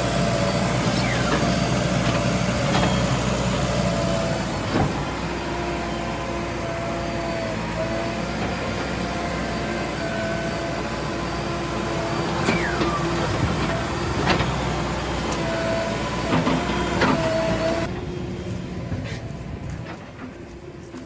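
Heavy diesel machinery running steadily, with a wavering whine that comes and goes and a few sharp knocks; the engine sound drops off near the end.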